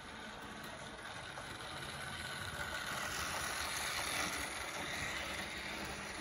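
00 gauge model freight train running past on the layout track, a steady mechanical running noise that grows louder from about two seconds in as the train comes close.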